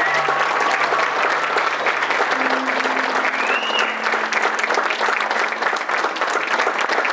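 Audience applauding steadily, with the slideshow's background music fading out in the first second or two.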